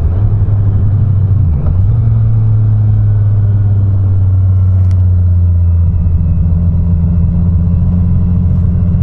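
Triumph Street Triple RS's inline three-cylinder engine running at a steady cruise, heard from the rider's helmet. Its note dips briefly about one and a half seconds in, then holds steady.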